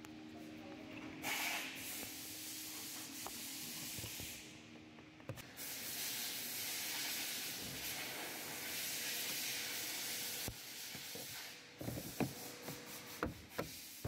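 Plastic car door trim panel being handled, a long hissing rub and scrape with a short break in the middle. Near the end comes a quick run of sharp knocks.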